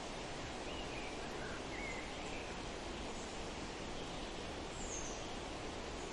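Steady wind rushing through forest trees, with a few faint, brief bird chirps scattered over it.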